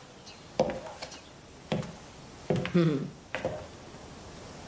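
Several sharp clicks or taps at irregular intervals, with a woman's brief wordless vocal sounds alongside two of them.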